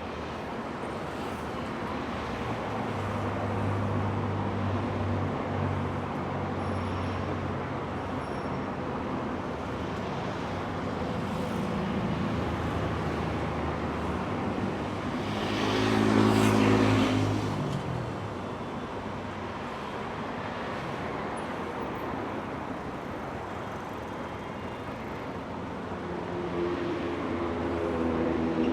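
City street traffic: a steady wash of passing cars with low engine hum. About halfway through, one vehicle passes close and loud, its engine tone rising then fading. Another engine builds near the end.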